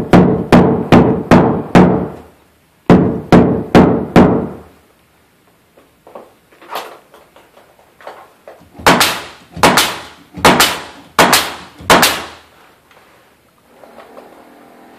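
Hammer knocking a wooden ceiling board tight into place. Quick runs of blows about three a second, each with a ringing tone from the board, then a pause of a few seconds and about half a dozen sharper, brighter blows.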